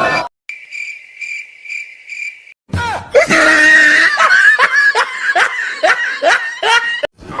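A cricket-chirp sound effect, about five high chirps over two seconds, then a loud burst of rapid, high-pitched laughter lasting about four seconds.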